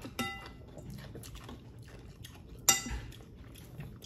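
A metal spoon clinking against ceramic bowls: a ringing clink just after the start, and a sharper, louder clink a little before three seconds in, with small taps between.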